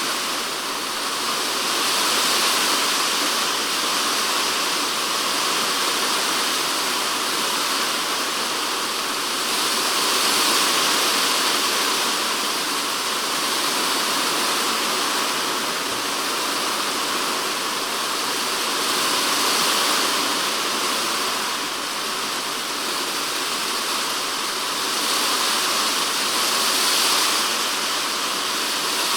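Typhoon rain drumming on a polycarbonate shed roof, heard from inside the shed: a dense, steady hiss of countless drops that swells louder a few times as the downpour comes in waves.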